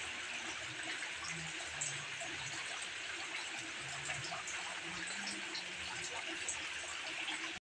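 Steady hiss of flowing floodwater.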